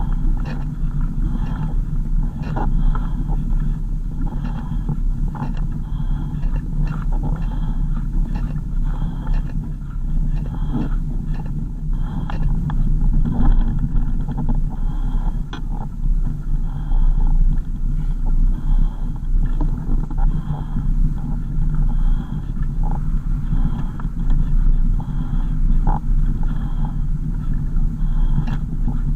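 A motor vehicle on the move: a steady low engine and road rumble, with faint short high ticks recurring about once a second.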